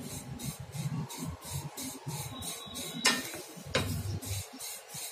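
Wooden spatula stirring dry vermicelli in a kadai, the strands rustling and the spatula scraping the pan, with two sharper scrapes a little past three seconds in and again a moment later. The vermicelli is being roasted dry until it turns golden. A low rumble runs underneath.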